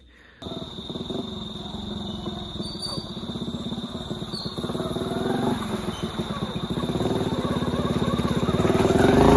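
A motor vehicle engine running with a fine pulsing note, starting abruptly about half a second in and growing steadily louder toward the end.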